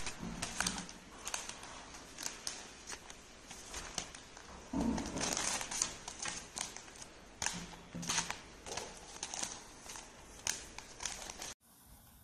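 Newspaper crinkling and rustling under a cat as it rolls and paws at it: an uneven run of crackles and clicks, cutting off suddenly near the end.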